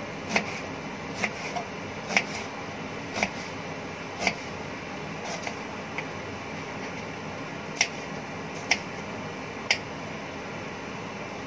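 Kitchen knife cutting an onion on a wooden cutting board: sharp knocks of the blade on the board, about one a second, over a steady background hiss.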